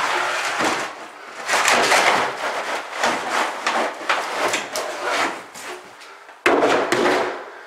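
Acrylic shower pan being handled and lowered into place: the thin plastic shell scraping and knocking against the wall framing and floor, with a sudden knock near the end.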